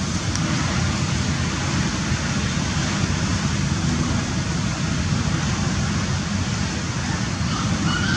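Steady outdoor noise: a constant low rumble with an even hiss above it and no distinct events, with a brief faint chirp near the end.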